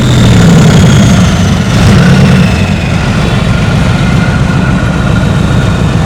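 A motor vehicle's engine idling with a steady, loud low rumble.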